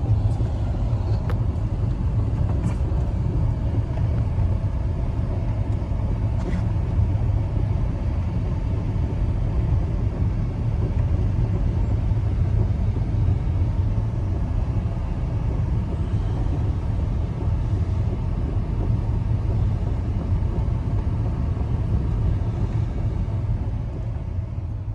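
Blizzard wind blowing hard and steadily, a deep rumbling noise with no rhythm, which fades out near the end.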